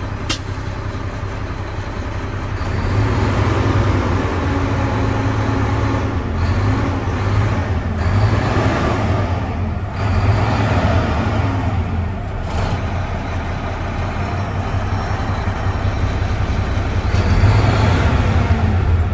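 Mack diesel engine of a 2007 Mack Granite dump truck running, heard from inside the cab. The engine speed comes up above idle, with the tachometer near 1200 rpm near the end.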